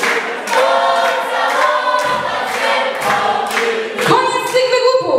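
Several voices singing a song over music with a steady beat, about two beats a second.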